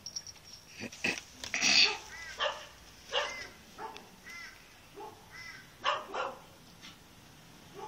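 Small dog giving a string of short, high yips and barks, about one or two a second, the loudest near two seconds in.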